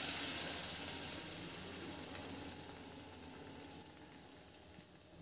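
Mango purée sizzling as it is poured into a hot kadhai on a low flame, the hiss fading steadily as the pour ends, with a small tick about two seconds in.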